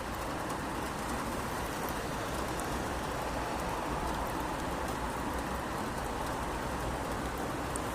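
Steady rain falling on a city street: an even hiss with scattered sharp drip ticks.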